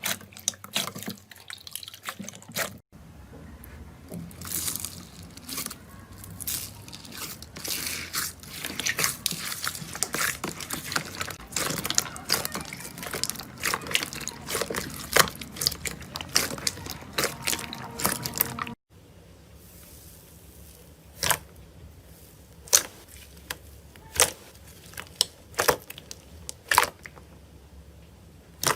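Slime being squeezed and handled, making sharp wet clicks and pops. There are three separate takes: scattered clicks, then a dense crackling run of pops, then slower single clicks, with sudden cuts between them.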